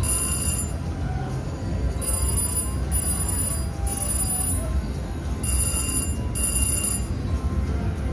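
Three-reel Hot Red Ruby 2 slot machine ringing bright electronic chimes in six short bursts as the reels spin, stop and pay out small wins, over a steady low casino hum.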